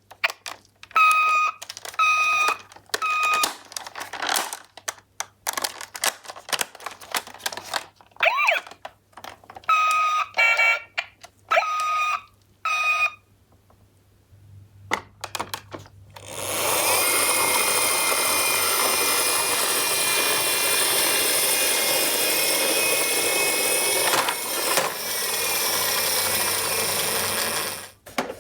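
Toy ambulance minicars' electronic sirens: short siren tones about one a second, a few gliding, broken by clicks and knocks of the plastic cars. From just past halfway a dense, continuous electronic din with many tones over it, several toy sirens sounding at once, which stops shortly before the end.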